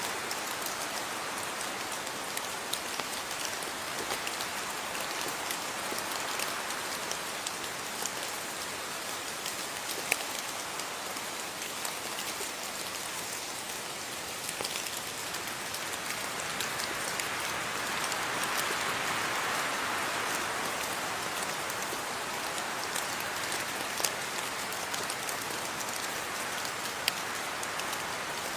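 Steady rain falling, a dense even hiss with individual drops landing as sharp ticks now and then; it swells slightly in the middle.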